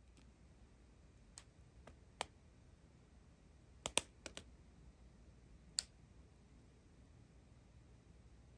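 A few faint, sharp clicks from handling a strip of small plastic zip bags of diamond-painting drills. Two come close together about four seconds in, and the rest are scattered over the first six seconds.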